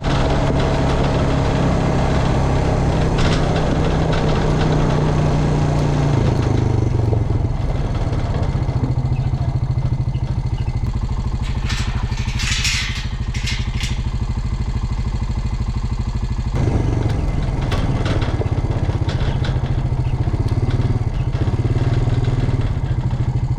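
A vehicle's engine running steadily as it is driven, its note shifting about six seconds in and again past the middle, with a few short clicks or rattles around the halfway point.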